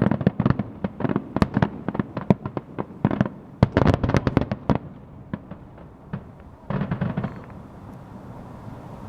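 Fireworks going off in rapid volleys of sharp bangs and crackles. They thin out after about five seconds, with a last short cluster of cracks about seven seconds in.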